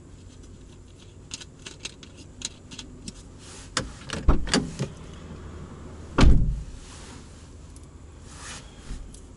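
Small clicks and knocks of objects being handled inside a parked car's cabin, with a cluster of sharper knocks about four seconds in and one heavy, deep thud about six seconds in.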